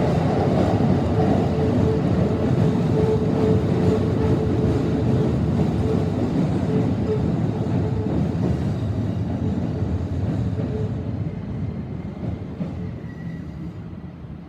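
Electric train running slowly past on a tight curve: a dense rumble with a steady tone through most of it, fading away over the last few seconds as the train leaves.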